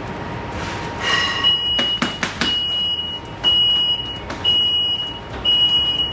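An electronic beeper sounding a high-pitched beep about once a second, each beep lasting most of a second, starting about a second and a half in. A few sharp knocks come just before and among the first beeps.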